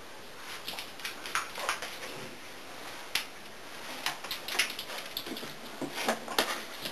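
A puppy's claws and paws on a hard floor: irregular light clicks and taps as it walks about.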